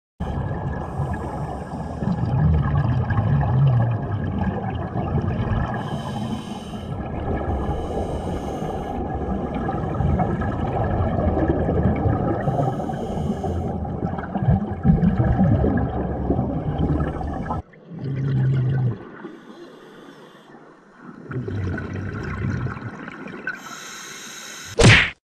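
Scuba diver breathing through a regulator as heard by an underwater camera: a steady rush of water noise with bursts of exhaled bubbles every few seconds. The sound drops off sharply about 18 seconds in and goes on quieter and patchier, ending in a short sharp click.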